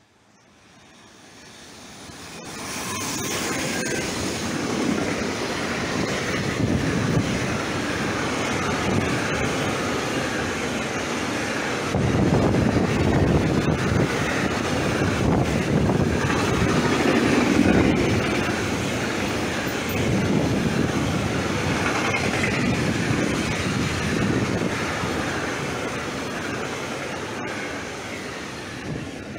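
Freight train of double-deck car-carrier wagons running past. The rumble rises over the first few seconds as it arrives, then holds as a steady rolling rumble and clatter of wheels on the rails while the long line of wagons goes by.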